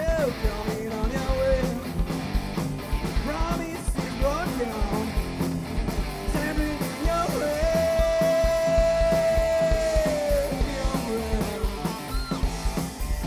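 Heavy metal band playing live: electric guitars, bass and drums, with one long held note about halfway through, lasting some three seconds.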